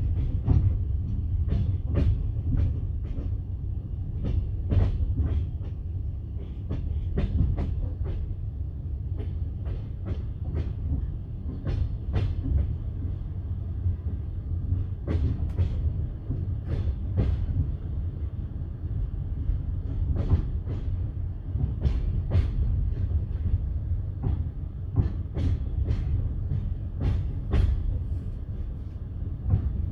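Passenger carriage wheels clacking over rail joints, heard from inside the carriage, over the steady low rumble of the train running. The clacks come at uneven intervals.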